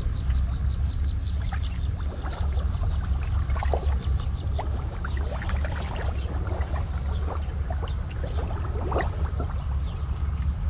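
Water trickling and splashing as a wet cast net is gathered up out of shallow pond water, with scattered small drips and sloshes over a steady low rumble.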